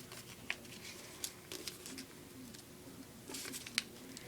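Origami paper being folded and creased by hand: faint rustling with a few light clicks and taps of the paper.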